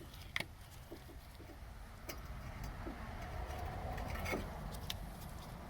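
Brake caliper piston compressor tool being turned by hand, pressing the caliper piston back into its bore, with scattered small metal clicks and a faint creak that builds about three seconds in and fades near the end, over a steady low rumble.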